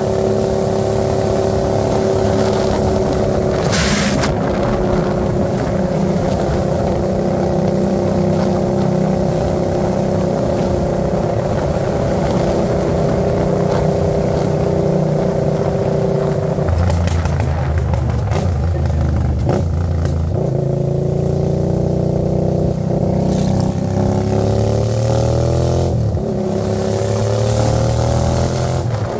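Hyosung GV650 V-twin engine running through a new exhaust while being ridden. It holds a steady pitch for the first half, shifts tone midway, then rises in pitch as it accelerates, with a brief drop a few seconds before the end.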